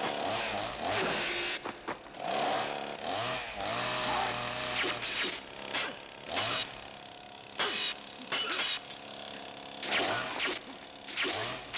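Two chainsaws revving up and down in a fight, their engine pitch rising and falling, with several short, harsh louder bursts, about five in all.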